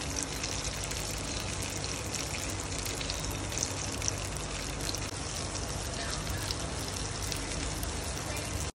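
Eggplant omelette frying in hot oil in a pan: a steady sizzle full of fine crackles that cuts off suddenly near the end.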